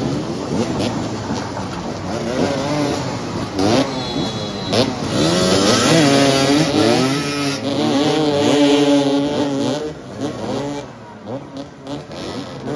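Several motoball motorcycles running and revving, their engines rising and falling in pitch. The loudest stretch is in the middle, as one bike passes close; the engines are quieter for the last few seconds.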